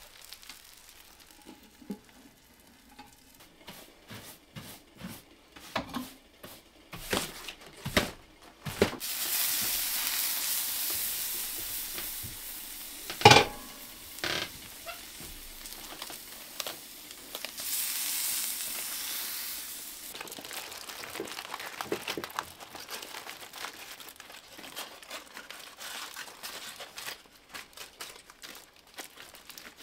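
Foil-wrapped potatoes and meat sizzling on a wood-stove top, a steady hiss through the middle stretch, with one sharp knock partway through. Clicks of handling come before it, and aluminium foil crinkles near the end as the packet is opened onto a plate.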